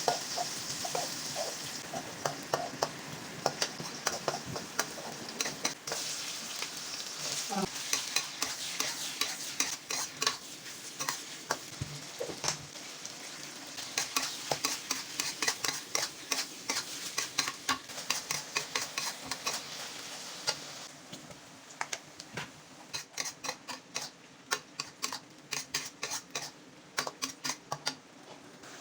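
Sliced sausage and carrot stir-frying in a pan: a steady sizzle with frequent sharp clicks and scrapes of a utensil against the pan. The sizzle eases about two-thirds of the way through while the utensil strokes go on.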